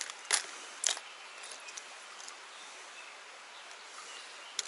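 Hard plastic clicks of fishing lures being handled in a clear plastic tackle box: two sharp clacks in the first second and another near the end, over a steady background hiss.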